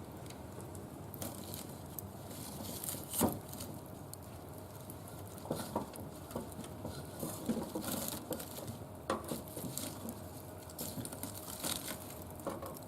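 Wood fire crackling in a barbecue grill: scattered sharp pops over a steady low rush, the loudest pop about three seconds in.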